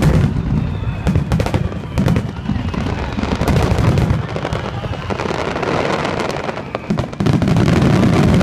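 Fireworks finale: a dense barrage of aerial shell bursts, many bangs in quick succession over a continuous rumble. The barrage grows heavier and more continuous about seven seconds in.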